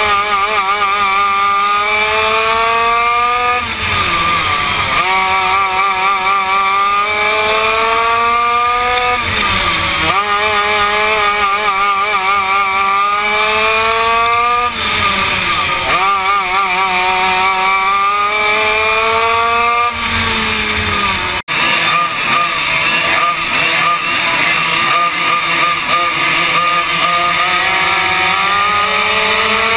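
Yamaha KT100 single-cylinder two-stroke kart engine at racing speed, heard from on board: its pitch climbs along each straight and drops off into each corner, four times about five seconds apart. After a brief dropout about 21 seconds in, other karts' engines running close alongside mix in and the pitch pattern becomes ragged.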